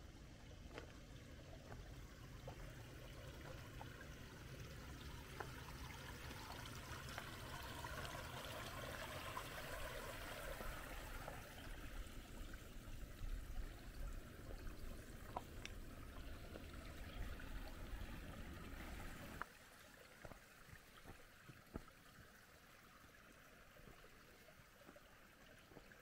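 Shallow, low-water creek trickling, faint, with the water noise louder for a few seconds near the middle. A low rumble under it stops suddenly about three-quarters of the way through.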